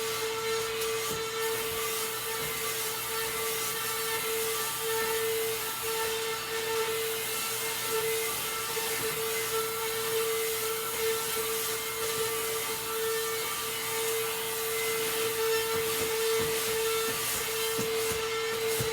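Portable vacuum cleaner running steadily: a constant motor whine over the hiss of its airflow.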